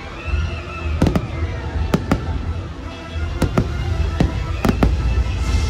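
Fireworks shells bursting: about nine sharp bangs, several in quick pairs, over a loud show soundtrack of music with heavy bass.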